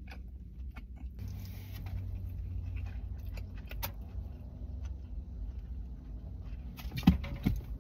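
Close-up chewing of a cheesesteak sandwich over a steady low hum inside a car, with scattered small clicks from handling the food and its plastic container. A few louder short sounds come near the end.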